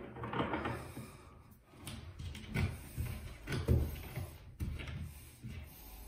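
Hand-threading a brass faucet valve cartridge into its valve body in the wall: light scrapes and a few small knocks of metal handling, spaced about a second apart.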